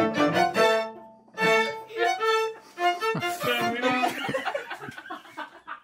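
String quartet of violins, viola and cello rehearsing: a phrase of held notes breaks off about a second in and starts again after a short pause, and the notes grow quicker and more tangled over the last few seconds.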